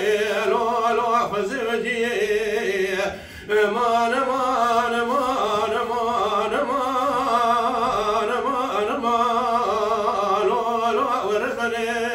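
A man singing unaccompanied in the Kurdish dengbêj style: long held notes with a wavering, ornamented line, and a short break about three seconds in.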